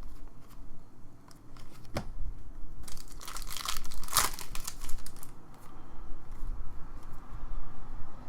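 A trading-card pack wrapper crinkling and tearing open. The loudest crackling comes about three to five seconds in, and a couple of sharp clicks from handled cards come before it.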